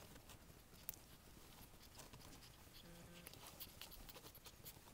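Near silence with faint, scattered soft clicks of newborn Havanese puppies suckling at their mother.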